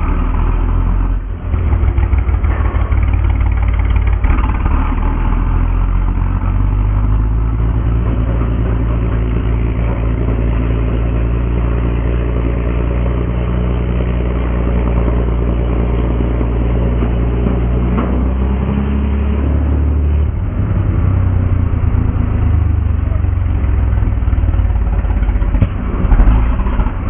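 Char B1 bis tank's six-cylinder Renault petrol engine running steadily under load as the tank climbs onto a tank-transporter trailer, its note rising briefly about two-thirds of the way through and then settling.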